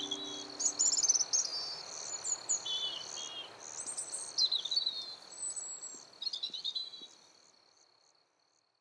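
Birds chirping and singing in short phrases over a steady high cricket trill, all fading out to silence near the end.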